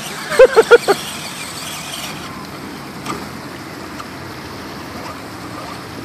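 Steady rushing noise of a small waterfall and flowing water, with a person's short burst of voice just after the start.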